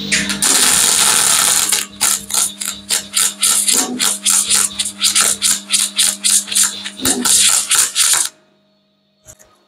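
Parkside PMSG 200 A2 MIG/MAG welder laying a bead at 100 amps and about 23 volts: the arc crackles loudly, unbroken at first, then in quick pulses about five a second, and cuts off about eight seconds in. A steady low hum runs underneath.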